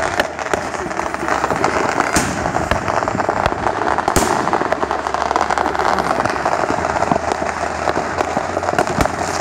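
Fireworks and firecrackers going off in a dense, continuous crackle, with two louder bangs about two and four seconds in.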